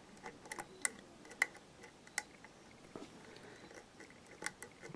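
Faint, irregular metallic clicks and ticks of a short hook pick probing the pins inside a pin-tumbler lock held under light turning tension, as it pushes the pins up and down while feeling for security pins.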